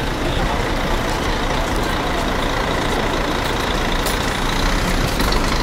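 Steady road traffic noise, with a coach bus and vans running close by at street level and a constant low rumble.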